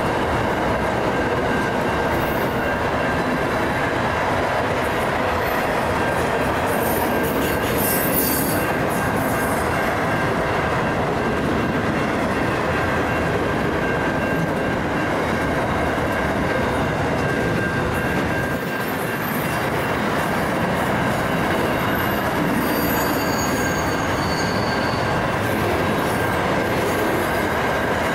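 Freight train of boxcars and double-stacked container wagons rolling steadily past, wheels clattering on the rail joints with brief high-pitched wheel squeals now and then. The level-crossing's Safetran bell rings throughout, the crossing being active while the train passes.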